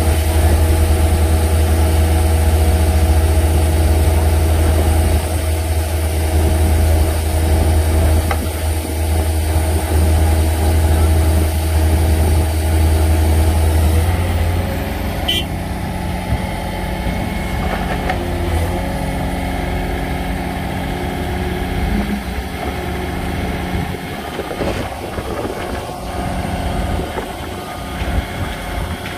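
Diesel engines of hydraulic excavators running with a deep, steady hum. The engine note changes and the sound eases slightly about halfway through.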